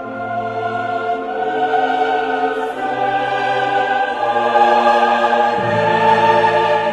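Background music: choral and orchestral, with sustained voices swelling louder toward the end.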